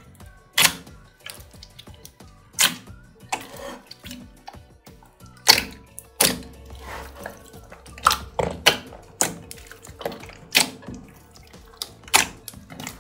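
Hands squishing and folding a big wet batch of mixed store-bought slime with clear 'fake water' slime worked into it, giving irregular sharp wet pops and clicks, over soft background music.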